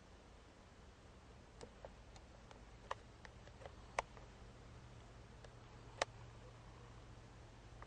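Faint, scattered ticks and clicks over a low steady hum and hiss. There are about a dozen small ticks, and the two sharpest come about two seconds apart in the second half.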